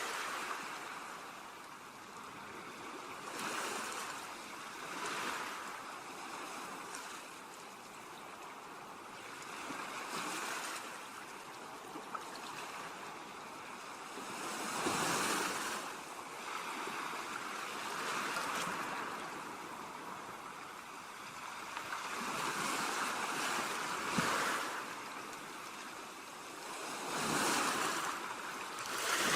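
Ocean waves breaking and washing up a beach, the surf swelling and falling back every few seconds. The strongest swells come about halfway through and near the end.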